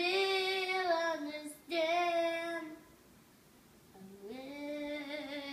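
A young girl singing a made-up song without clear words: two long held notes, a pause of about a second and a half, then a note that slides up and holds near the end.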